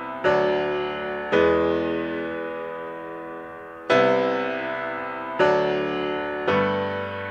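Background music of slow keyboard chords, five struck in turn, each left to ring and fade.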